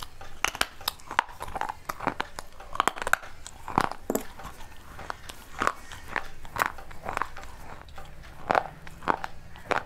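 Close-up biting and crunching on shards of a fired clay pot: irregular sharp crunches, one or two a second.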